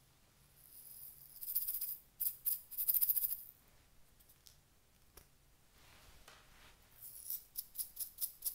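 Small plastic sequins rattling inside a plastic bottle as it is shaken. There are two bursts of fast rattling in the first half, then a run of quick separate shakes near the end as the sequins are tipped out into a palm.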